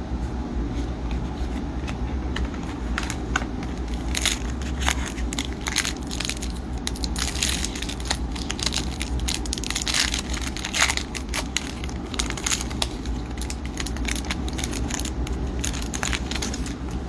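Plastic wrapper of a hockey trading-card pack crinkling and tearing as it is opened, a dense run of crackles.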